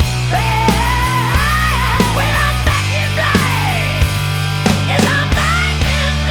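Heavy rock music with a steady bass and bending lead lines.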